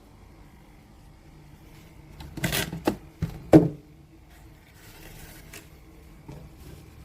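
A few sharp knocks and a short clatter of something hard being handled, the loudest a single ringing knock about halfway in.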